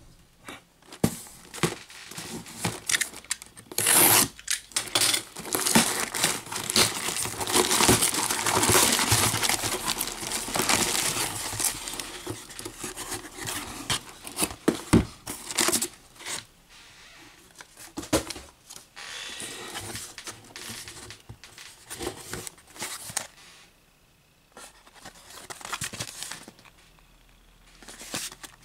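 A cardboard shipping box and its paper packing being handled: paper rustling and cardboard flaps rubbing, with sharp knocks of cardboard now and then. Busiest in the first half, thinning out to occasional handling noises in the last third.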